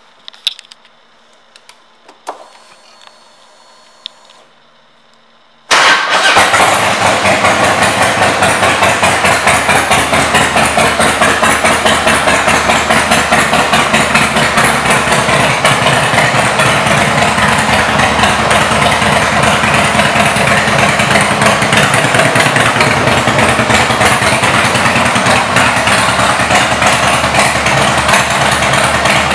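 Harley-Davidson Screamin' Eagle Softail Deuce's V-twin engine, cutting in suddenly about six seconds in and then running loudly and steadily with a fast, even pulsing beat. Before it, only a few faint clicks.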